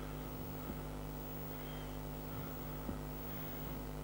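Steady electrical mains hum, with a couple of faint ticks.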